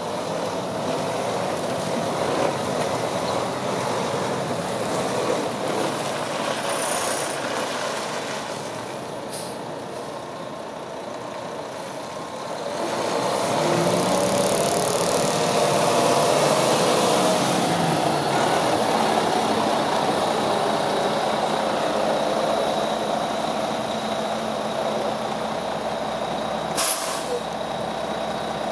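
Diesel engine of an International ProStar+ day cab tractor running as the truck is driven, getting louder and rising and falling in pitch about halfway through. A short sharp hiss of air brakes near the end.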